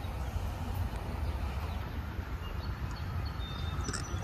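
Outdoor ambience with a steady low rumble and a few faint, short bird chirps.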